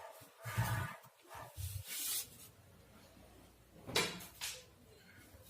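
A few light knocks and rubbing scrapes of amplifier parts being handled as a display board is fitted to the front panel, with the sharpest knock about four seconds in.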